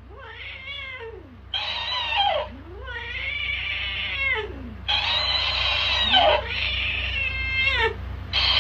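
Tabby cat yowling angrily at a talking-hamster toy: a run of long, drawn-out cries, each rising and falling in pitch, a cat growing more agitated. A steady low hum runs underneath.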